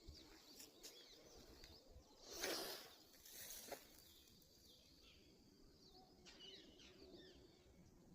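Faint scattered chirps of small songbirds, with a brief noisy swish about two and a half seconds in and a smaller one a second later.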